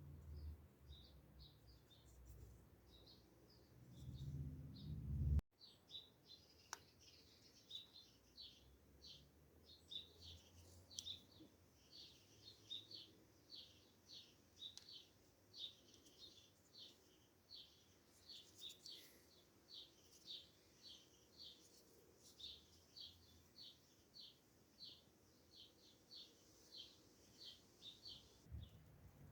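A bird chirping over and over, faint, short high chirps about twice a second. A low rumble under the first few seconds stops abruptly.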